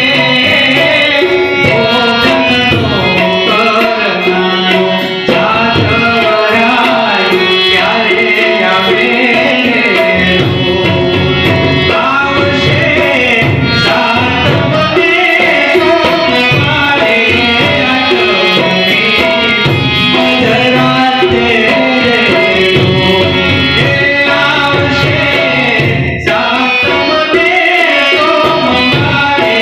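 Male voice singing a Gujarati folk song (lokgeet) through a microphone, accompanied by harmonium and tabla keeping a steady rhythm.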